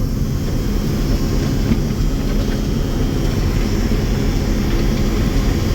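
Combine harvester running steadily while harvesting corn: a constant loud engine and machinery drone, with no change in speed or load.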